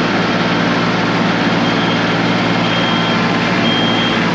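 Small vehicle engine running steadily, with a backup alarm beeping about once a second from about a second and a half in: the machine is reversing.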